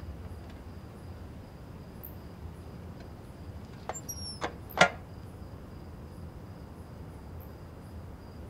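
Crickets trilling steadily over a low rumble of night ambience. About four seconds in come three sharp clicks, the last and loudest a little before five seconds.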